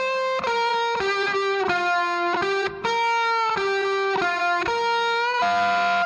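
Instrumental background music: a single lead melody stepping from note to note, with a few sliding transitions between notes.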